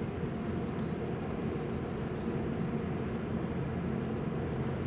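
Steady low rumble of the helicopter destroyer JS Kaga's gas-turbine propulsion as the ship passes close by.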